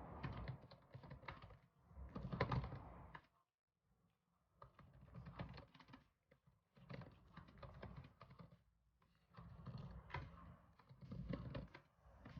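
Typing on a computer keyboard in quick runs of key clicks, with two short pauses, about three and a half seconds in and about nine seconds in.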